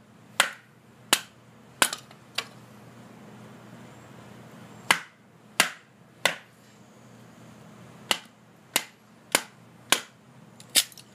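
Wooden baton striking the spine of a Gerber LMF II fixed-blade knife, driving the blade down through a log to split it. About a dozen sharp knocks come in three bursts: four, then three, then five, with short pauses between.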